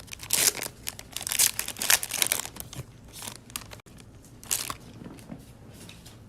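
A Panini Playbook football card pack's wrapper being torn open and crinkled by hand: irregular crackles and rips, dense for about three seconds, then thinning to a few scattered crinkles.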